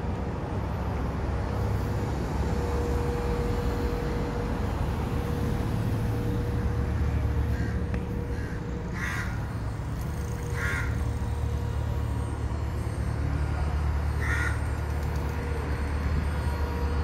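A bird calls three times in short bursts, about nine, ten and a half and fourteen seconds in, over a steady low outdoor rumble.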